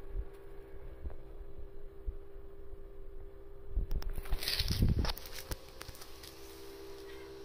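Handling noise from a moving phone: scattered low bumps, then a louder rustle and clicks about four to five seconds in as the camera swings, over a faint steady hum.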